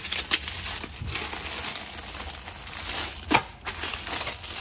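Rustling and crinkling of materials being handled, with a few light clicks and knocks; the loudest is a sharp click a little past three seconds in.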